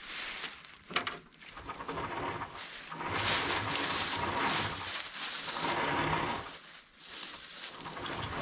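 Footsteps crunching through dry fallen leaves while winch line is pulled by hand off a free-spooling Jeep winch and dragged across the leaves, loudest in the middle few seconds, with a sharp click about a second in.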